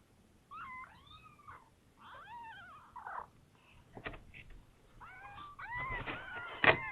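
Newborn kittens mewing: short, high-pitched cries that rise and fall, several overlapping in the last couple of seconds. A sharp knock near the end.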